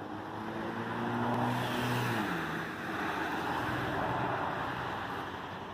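A car passing by: engine and tyre noise swells and then fades, and the engine note drops in pitch about two seconds in as the car goes past.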